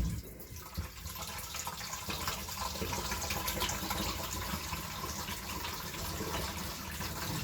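Tap water running and splashing into a pot as rice is rinsed, a steady wash of water sound throughout.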